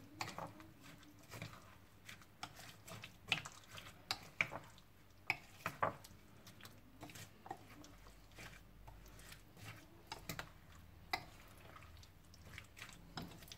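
Metal spoon stirring diced potatoes into batter in a glass bowl: faint, irregular clinks and scrapes of the spoon against the glass, with soft wet sounds of the batter.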